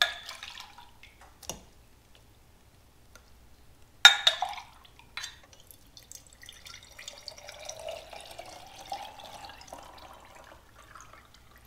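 A glass measuring cup clinks against a stainless steel pot and a strainer as melted lard is scooped, with a sharp clink about four seconds in. Then, for several seconds, hot rendered lard pours in a trickling stream through a mesh strainer into a glass mason jar.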